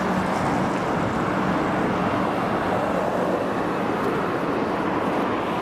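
Steady noise of a car, its engine and road noise running evenly, with a faint low hum that fades out about a second and a half in.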